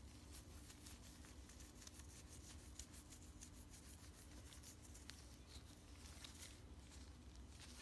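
Faint, soft scratching and rustling: a nitrile-gloved hand rubbing and scratching a cat's fur, with a low steady hum underneath.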